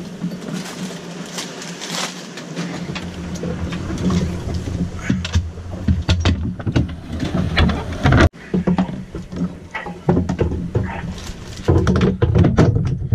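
Scattered knocks, clunks and rattles of gear being handled and stowed in a sailboat's cabin, over a steady low hum.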